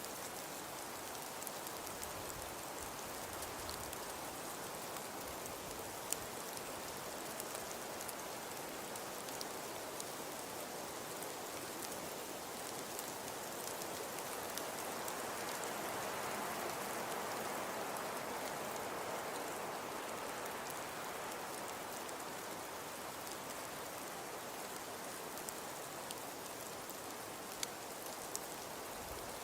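Snowfall ambience: a steady, even hiss of falling precipitation with scattered small ticks of it landing, swelling slightly about halfway through.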